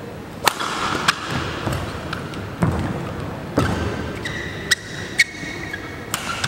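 Badminton rally: rackets strike the shuttlecock in sharp cracks about a second apart, with players' shoes squeaking and thudding on the court floor between the hits.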